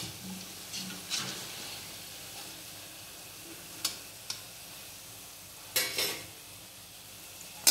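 Lauki kofta (bottle-gourd and gram-flour balls) deep-frying in a kadhai of oil, a steady sizzle. Over it come short scrapes and clinks of a slotted spatula against the pan as the fried balls are lifted out, the loudest pair about six seconds in.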